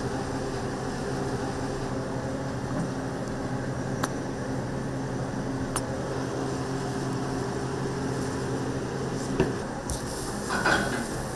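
Steady hum of kitchen machinery, such as ventilation or appliance motors, with a few sharp clinks of utensils or dishes.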